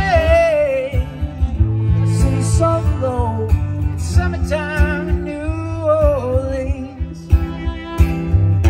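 Acoustic guitar strumming steady chords while a fiddle plays a bowed melodic fill with vibrato and slides, in a live country-style duo.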